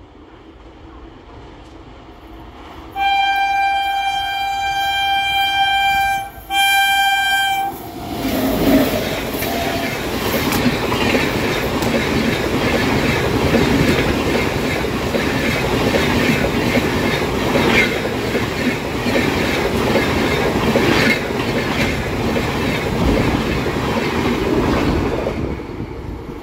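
Passing express train of LHB coaches: the locomotive's horn gives a long blast of about three seconds, then a short second blast. The train then passes at speed with a loud steady rush and rapid rhythmic wheel clicks, which ease off near the end.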